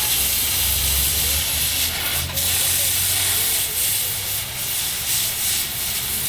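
Cutting torch flame cutting metal: a steady, loud hiss over a low rumble, wavering slightly a couple of times.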